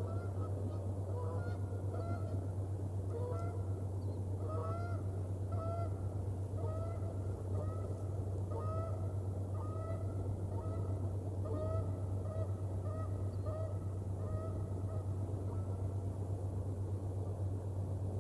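Geese honking in flight: a rapid run of short honks that grows louder, then fades out a few seconds before the end, over a steady low hum.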